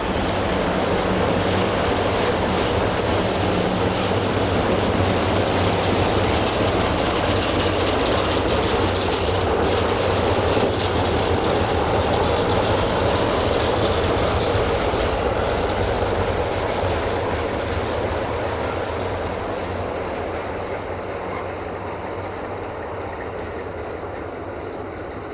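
A train moving through the station, its rolling noise swelling to a peak about midway and then fading away, over a steady low hum.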